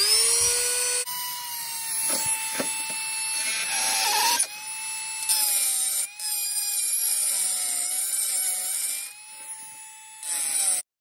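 Cordless die grinder with a carbide burr grinding through a rusty steel chainsaw muffler to open extra exhaust holes. Its motor whine spins up at the start and drops slightly in pitch as the burr bites into the metal, with a few short breaks, then cuts off suddenly just before the end.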